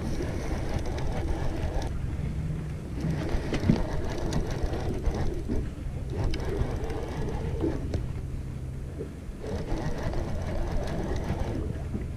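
Conventional level-wind reel being cranked as a jig is worked, its gears whirring in a steady run, over a low steady hum.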